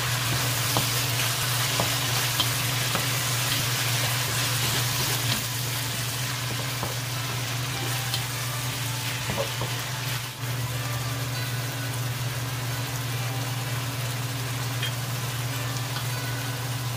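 Chicken thigh pieces sizzling and frying in a hot wok while being stirred with a wooden spatula, with a few faint scrapes and taps of the spatula.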